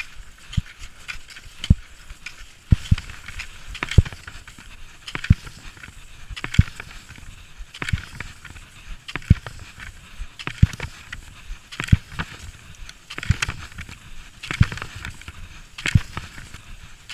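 Cross-country ski poles planting in snow in a steady double-poling rhythm, a sharp thud about every 1.3 seconds, over the continuous hiss of classic skis gliding in set tracks.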